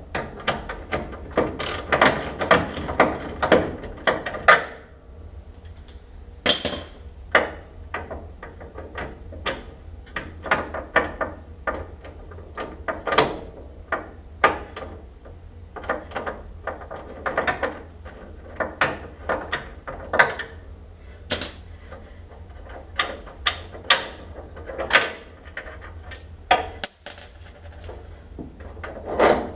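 Metal hand tools working on a car body: a rapid run of ratchet-like clicking for the first few seconds, then scattered sharp metallic knocks and clinks, a few ringing briefly, as bolts of the radiator support are worked loose.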